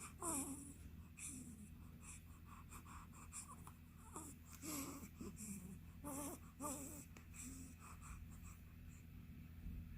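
A 15-day-old baby with the hiccups making faint little squeaks and breathy grunts. There are several short, wavering squeaks, the clearest from about four to seven seconds in.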